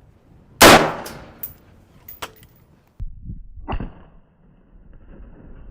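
A single .223 rifle shot, sharp and very loud, trailing off over about a second, followed by a few fainter clicks and knocks.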